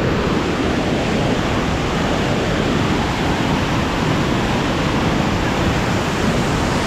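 Whitewater pouring through the spill gate of a river anicut (weir): a steady, loud rush of falling, churning water.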